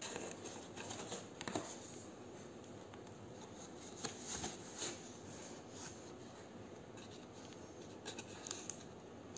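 Faint handling of a cardboard takeaway box and its paper wrappings: soft rustles with a few light clicks and taps.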